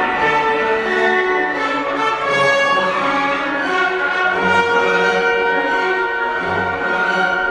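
Background orchestral music with bowed strings, sustained notes changing every second or so.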